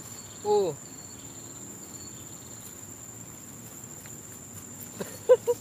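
Insects chirring in a steady high-pitched drone in riverbank grass. A person's short falling voice sound comes about half a second in, and a few brief voice sounds come near the end.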